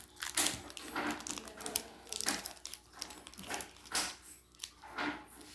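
Foil Pokémon booster pack wrapper crinkling as it is torn open and handled, in short irregular crackles.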